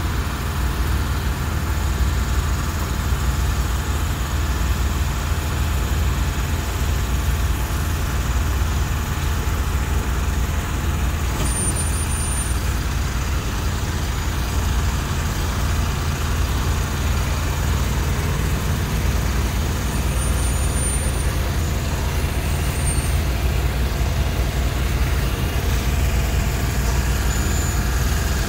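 Heavy-haul truck's diesel engine running steadily as it slowly tows a multi-axle trailer loaded with a train car past, a low rumble throughout. A few short, faint high-pitched sounds come through about halfway and again a little later.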